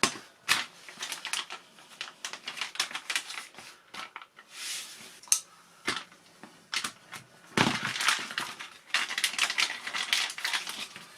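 Plastic ducted-fan parts and their packaging being handled: irregular rapid clicks and taps, with a denser spell of crinkling about eight seconds in.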